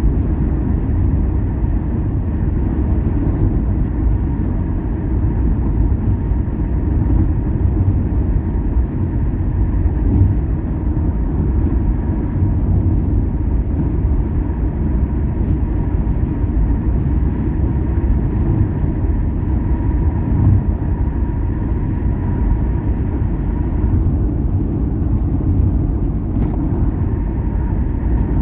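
Steady low rumble of a car driving along a highway, engine and tyre noise, with a faint steady high whine.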